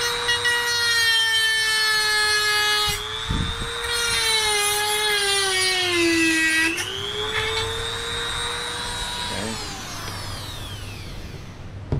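Handheld corded rotary tool running at high speed with a steady whine while cutting a piece off a plastic door panel pad. The pitch sags around six seconds in as the tool bites under load, comes back up, then winds down in a falling whine near the end as it is switched off.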